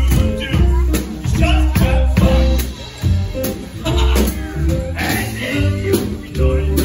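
Live band music in a jazzy style: upright double bass plucked, with saxophone and piano playing along.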